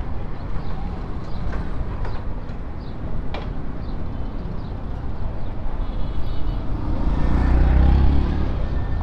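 Royal Enfield Classic 350's single-cylinder engine running at low speed in street traffic, heard from the rider's seat. A louder low rumble swells about seven seconds in.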